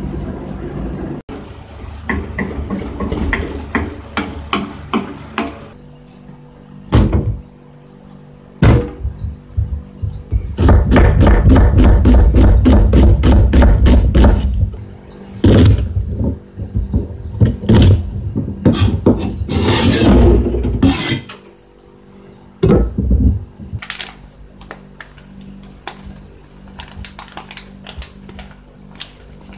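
Kitchen knife mincing onion on a cutting board: runs of quick blade knocks on the board, fastest and loudest for a few seconds midway at several strokes a second, with scattered chops before and after.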